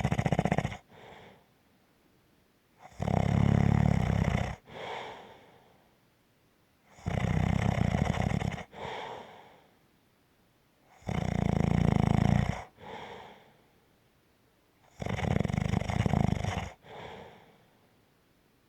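Snoring in a steady rhythm: a loud snore about every four seconds, each lasting about a second and a half and followed by a shorter, softer breath.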